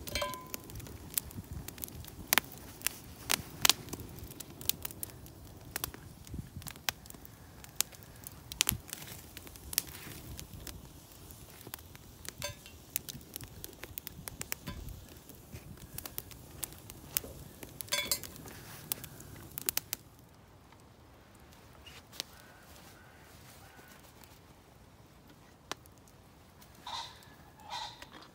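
Wood campfire crackling with frequent sharp pops and snaps, thinning out and getting quieter about two-thirds through. Near the end a couple of brief ringing metallic clinks come from the cast-iron Dutch oven's wire bail being handled.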